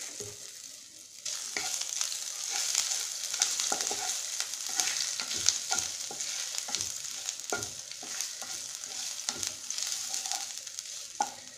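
Ginger paste and whole spices frying in hot mustard oil in a kadai, sizzling steadily, with a spatula scraping and tapping against the pan as it is stirred. The sizzle comes up about a second in.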